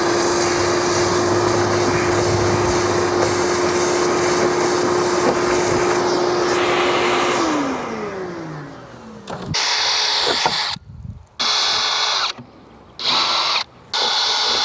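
Vacuum cleaner running with a steady whine, switched off about seven seconds in and winding down with a falling pitch. Then a cordless drill runs in short bursts with pauses, drilling 1/8-inch pilot holes into the aluminium boat deck.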